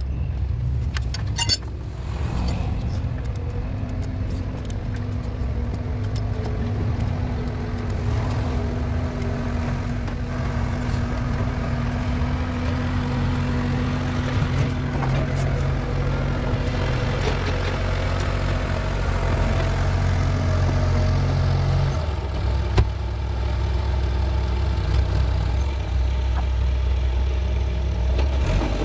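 A steady low mechanical drone, like a motor running, whose pitch pattern shifts about three-quarters of the way through, with a few light metallic clicks near the start.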